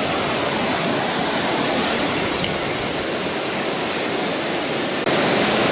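A 30-foot waterfall's falling water rushing steadily, an even, loud noise of water with no distinct events, stepping up slightly in loudness about five seconds in.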